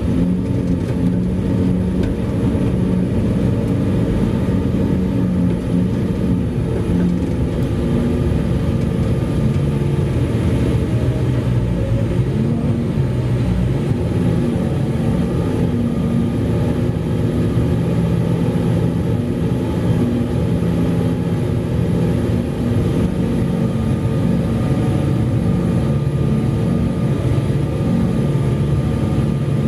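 Heavy mining machinery, a large excavator and haul truck, running continuously: a deep, steady engine drone whose pitch shifts slightly now and then.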